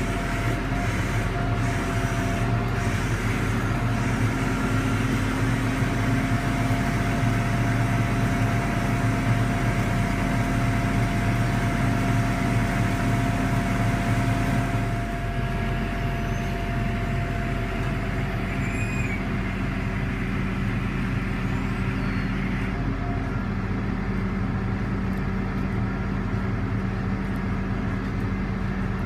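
Link-Belt 8065 crane's diesel engine running at raised speed, with a steady whine over it, then dropping to a lower, steady run about halfway through.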